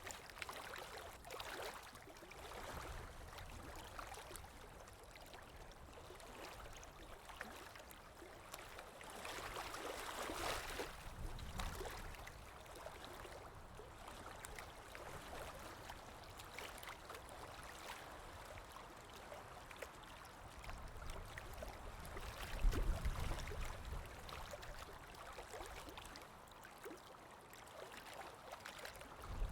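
Running water flowing steadily, with many small splashes, swelling louder about ten seconds in. A brief low rumble stands out about two-thirds of the way through.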